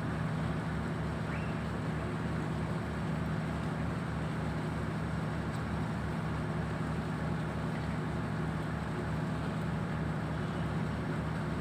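An engine running steadily: a constant low hum with a regular low throb.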